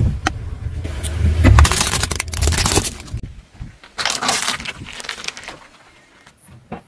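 Car tyre rolling slowly over small plastic food packs on asphalt and crushing them: crackling, splitting plastic over a low tyre rumble. The sound breaks off about three seconds in, and a second shorter crunch of plastic cups bursting comes about a second later.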